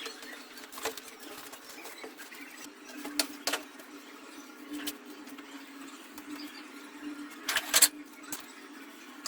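Scattered light clicks and knocks over a faint steady hum, with a few louder knocks near the end.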